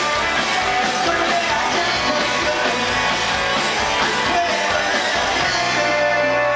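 Live rock band playing: electric guitars, bass guitar and drums with a singer. Near the end the band settles onto long held notes.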